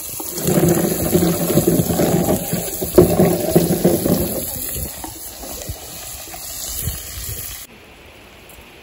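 Chopped tomatoes and onions hitting hot oil in a kadai, sizzling loudly for about four seconds, then settling to a quieter sizzle.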